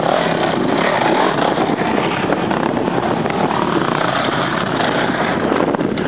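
Off-road dirt bike engines revving up and down unevenly as the bikes are worked slowly over big rocks, with no let-up.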